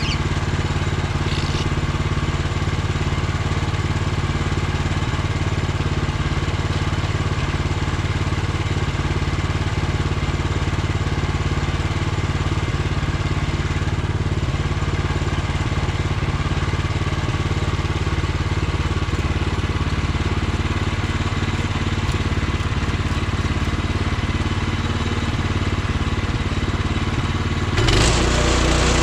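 Woodland Mills HM126 portable bandsaw sawmill's gas engine running steadily. About a second before the end it turns louder and deeper.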